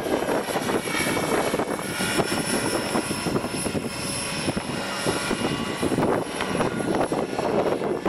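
Radio-controlled model helicopter flying, its motor and rotor making a high whine. Strong wind buffets the microphone underneath.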